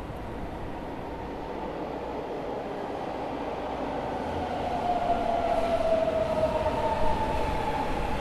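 Subway train pulling into an underground station, its rumble growing steadily louder as it nears, with a high whine joining about halfway through.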